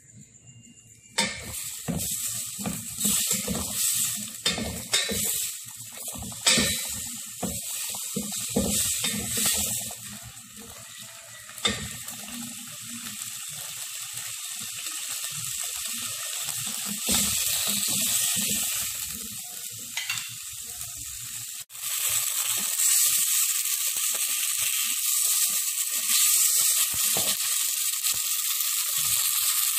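Garlic, onion, ginger and tomato sizzling as they sauté in a little oil in a stainless steel pot. Starting about a second in, a wooden spatula scrapes and knocks against the pot for roughly ten seconds. After that the sizzling runs on steadily, cutting off suddenly about two-thirds through and coming back louder.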